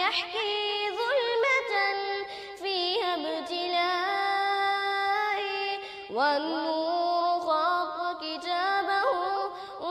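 A solo voice singing an Arabic nasheed in long, ornamented held notes over a steady sustained drone, with no instruments heard. A new phrase begins about six seconds in with a rising swoop.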